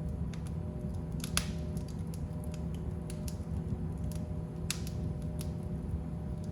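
Fire burning in a fireplace: irregular sharp crackles and pops over a steady low rumble of flames, with two louder snaps, one about a second and a half in and one about two-thirds of the way through.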